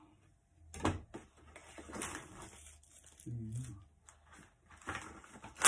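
A cardboard box being cut open with a kitchen knife and its flap pulled and torn: scattered scrapes, clicks and rustles, ending in a sharp snap.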